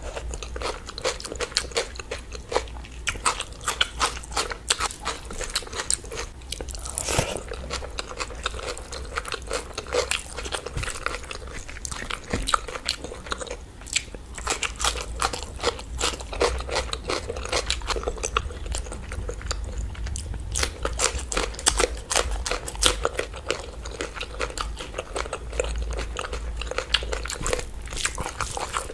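Close-miked eating: repeated crunchy bites of raw onion and wet chewing of hand-eaten rice and curry, a steady stream of crisp crackles and clicks.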